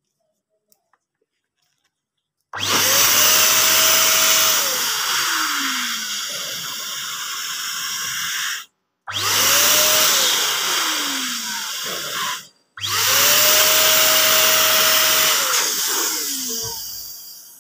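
Electric balloon pump's motor blowing air into a latex balloon, switched on about two and a half seconds in and run three times with short stops between. Each run starts suddenly with a whine that climbs, holds, then sinks in pitch as the noise eases.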